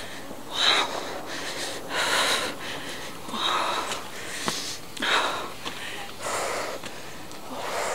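A hiker's heavy breathing close to the microphone: about six loud breaths, one roughly every second and a half. She is out of breath from the steep uphill climb.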